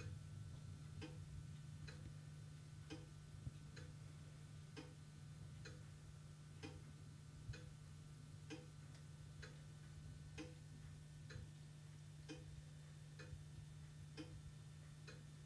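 Faint, regular ticking, a little faster than once a second, over a steady low hum.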